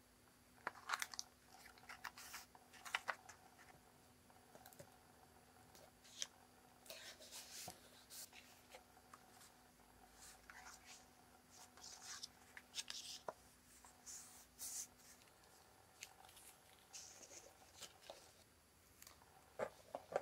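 Faint rustling and light tapping of paper and cardstock being handled and shifted on a tabletop, in short scattered bursts.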